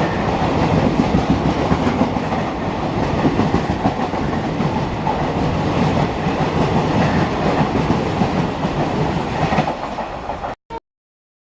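Passenger express train passing at speed, its wheels clattering steadily over the rail joints. The sound cuts off abruptly about ten and a half seconds in.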